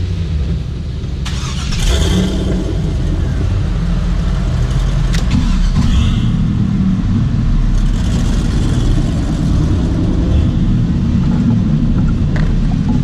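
Off-road vehicle's engine running as it drives over a dirt trail, getting louder about two seconds in as it picks up throttle, with a few light knocks and rattles.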